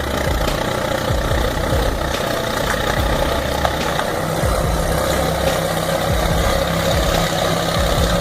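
Heavy machine's engine running steadily, with a steady low tone that comes in about four seconds in.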